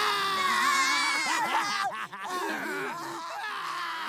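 Several cartoon voices whining together at once, a long wavering chorus of complaint.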